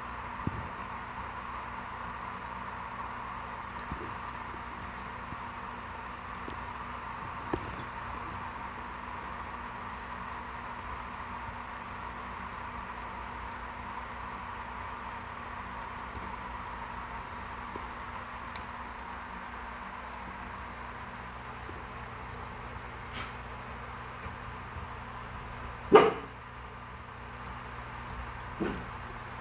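A cricket chirping in repeated trains of rapid, high-pitched pulses over a steady low hum. A single sharp knock sounds near the end, the loudest moment, followed shortly by a fainter one.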